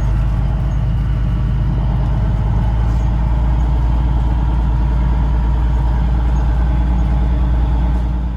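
Steady engine drone and cab rumble from a vehicle being driven along a dirt road, heard from inside the cab.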